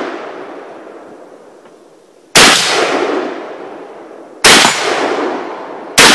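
AK-47 rifle fired in slow single shots: three shots, the first about two seconds in and the next two about two and one and a half seconds apart, each followed by a long fading echo.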